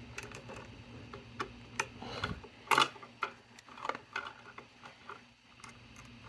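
Scattered light clicks and taps of needle-nose pliers and wires being handled while the wire loops in an outlet box are bent into shape, one click louder about two and a half seconds in.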